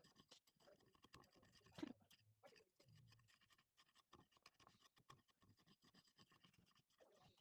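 Faint scratching with many light, irregular clicks, as of something being rubbed or handled close by.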